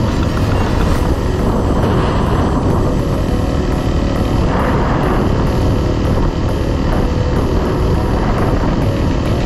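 Honda CRF dual-sport motorcycle running steadily while being ridden, engine drone mixed with a loud continuous rush.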